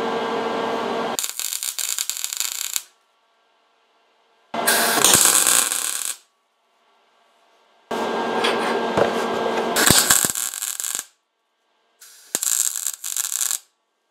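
Electric arc welder laying tack welds on steel tubing: four separate bursts of arc crackle, each starting and stopping sharply, with short silences between.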